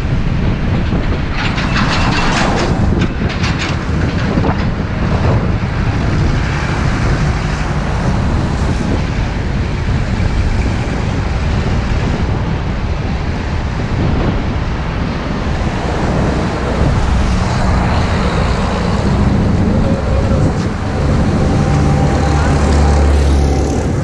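A bus driving along, heard from on board: steady engine and road rumble with rattling of the body. A burst of clattering comes about two to four seconds in.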